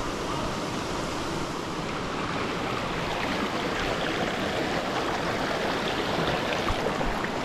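Waterfall's water rushing and splashing in a steady, unbroken roar.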